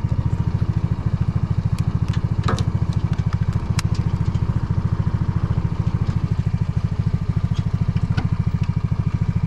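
GTS 150 buggy's small 150 cc engine idling with a steady, even pulse, with a few light clicks over it.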